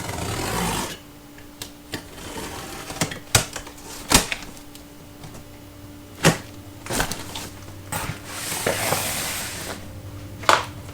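A cardboard shipping box being handled and turned over: a few sharp knocks against it and two longer stretches of scraping and rustling cardboard.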